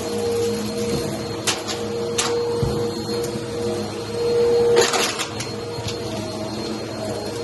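Vacuum cleaner running steadily on carpet with a steady hum, with a few sharp clicks and rattles as small hard debris is sucked up through it, the loudest about five seconds in.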